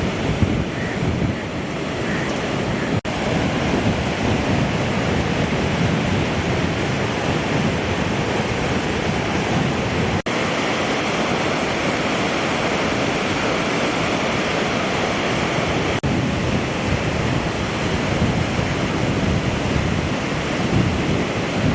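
Rushing floodwater of the Godavari river, a steady loud roar of moving water, with wind buffeting the microphone. The sound cuts out for an instant three times.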